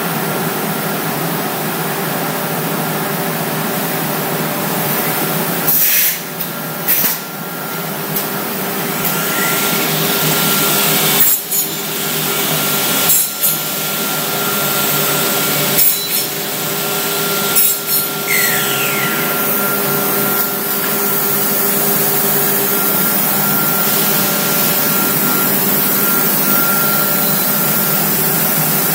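Homag CNC machine running steadily, a power-tool cutting noise over a constant hum, broken by several brief dips in the sound.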